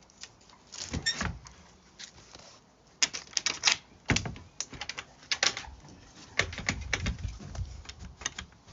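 Irregular clatter of sharp clicks and knocks, some single and some in quick runs, much like typing. The runs come thickest from about three seconds in.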